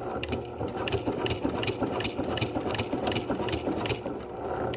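Electric sewing machine stitching a quilted upholstery seat cover: the motor hums steadily under a fast, even needle clatter of about five stitches a second.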